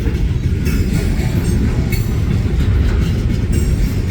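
Freight train cars rolling past close by: a steady, loud low rumble of steel wheels on rail with faint clicks from the rail joints.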